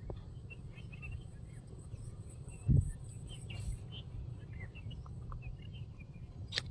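Scattered short chirps of small birds over a steady low rumble, with one loud dull thump just under three seconds in.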